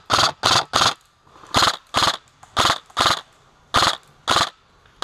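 Airsoft rifle firing single shots in quick succession, about nine short sharp reports, mostly in pairs.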